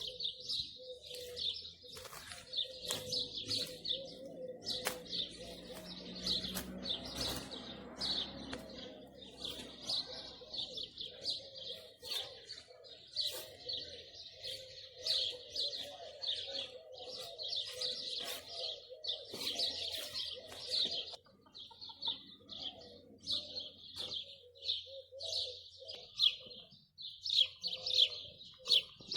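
Small birds chirping rapidly and without a break, with a low, steady cooing underneath.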